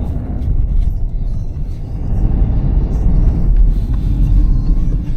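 Low, steady rumble of a car on the move.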